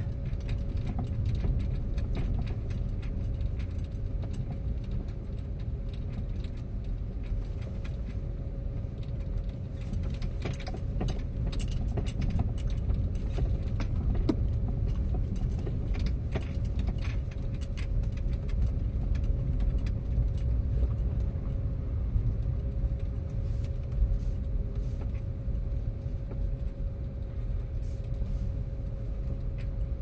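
Car driving slowly, heard from inside the cabin: a steady low engine and road rumble with a faint steady hum, and scattered small clicks and rattles throughout.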